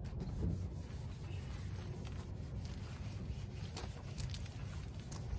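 Outdoor background noise: a steady low rumble with a few faint, scattered clicks.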